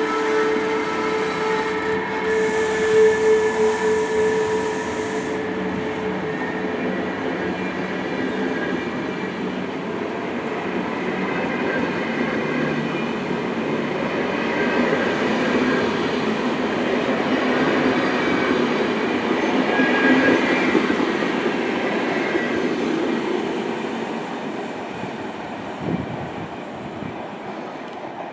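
SBB Re 460 electric locomotive hauling double-deck passenger coaches through the station. The locomotive's steady electric whine is heard first, with a brief high hiss about two to five seconds in. It gives way to the rumble and clatter of the coaches' wheels on the rails, which is loudest about two-thirds through and then fades as the train moves off.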